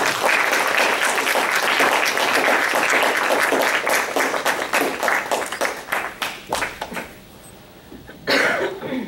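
Audience applauding, thinning out to a few scattered claps after about seven seconds. A short burst of noise near the end.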